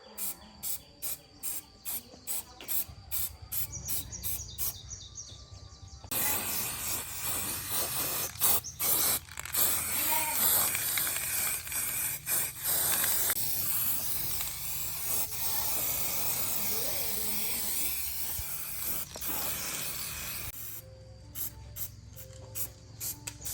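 A long hiss of compressed air spraying, starting about six seconds in and stopping about fifteen seconds later, with a quick run of regular clicks before and after it.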